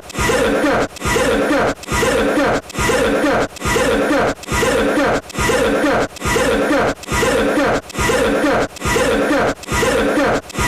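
A person's cough, the same short clip looped over and over at an even pace of a little more than one cough a second, each cough carrying a pitched, chuckle-like note.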